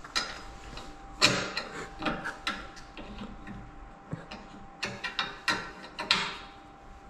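Small open-end wrench turning a bolt on a generator's steel lift bar: irregular metallic clicks and scrapes as the wrench is worked and repositioned, a few of them louder.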